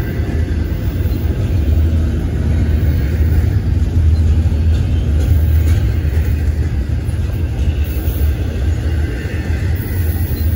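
Double-stack container train's well cars rolling past on the rails, a steady low rumble.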